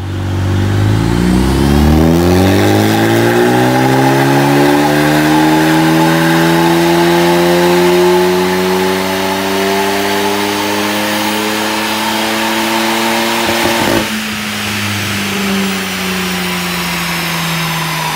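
Stage 1 remapped Ford Focus ST engine doing a full-throttle dyno power run: the revs climb steadily for about fourteen seconds, quickly at first and then more slowly. The throttle is then suddenly lifted with a brief crackle, and the engine note drops and slowly falls away as the car coasts down.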